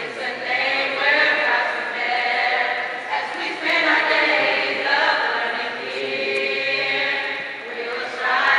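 High school choir singing, holding long chords that shift every second or two.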